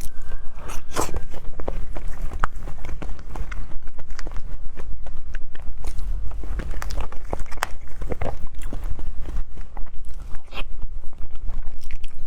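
Close-miked eating of a fruit dessert: irregular clicks and crunches of biting and chewing.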